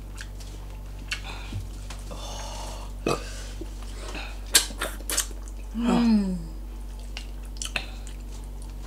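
Eating sounds: scattered sharp mouth clicks and smacks while fried fish is eaten by hand, then a short burp that falls in pitch about six seconds in, the loudest sound.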